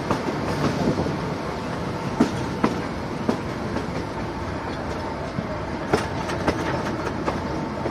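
Kangra Valley Railway narrow-gauge passenger train running along the track, heard from an open coach window: a steady rumble of wheels on rail with irregular sharp clacks as the wheels pass over rail joints.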